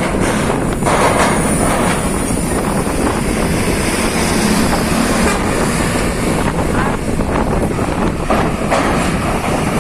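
Heavy vehicles, trucks and buses, running close by: a loud, steady rumble with a few metallic clanks.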